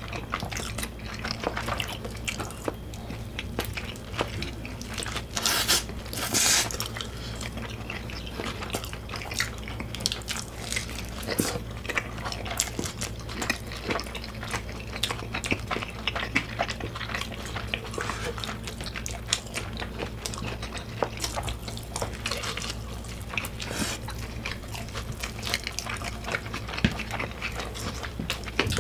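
Two people chewing hamburgers close to the microphone: many small wet mouth clicks and smacks, with a brief louder noisy stretch about six seconds in. A steady low hum sits underneath.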